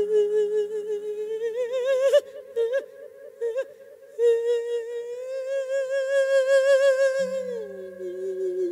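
A monk singing an Isan thet lae (melodic sermon) into a microphone, drawing out wordless vowels in long held notes with a wide vibrato. The voice breaks off about two seconds in, comes back with another long held note, and drops in pitch near the end, over a low steady drone.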